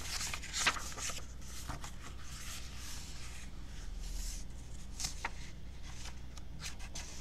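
Paper rustling as a picture book's page is turned and the book is handled, with a few short paper clicks, the sharpest just under a second in.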